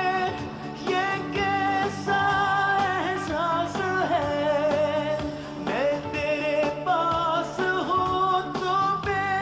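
A song with a singing voice over instrumental backing; the voice holds long notes with a wavering vibrato and slides between pitches.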